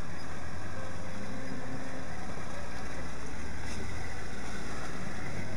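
Engine of a 4x4 running steadily at low speed over a rough dirt road, heard from inside the vehicle, with continuous road noise and rattling.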